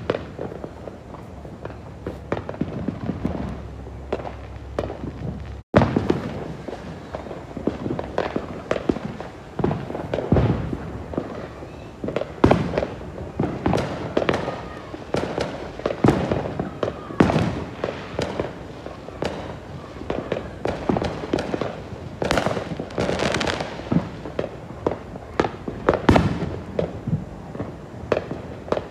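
Many fireworks going off around a neighbourhood at once: a continuous run of overlapping bangs and pops, near and far. About six seconds in, the sound cuts out for an instant, and the bangs are louder and denser after it.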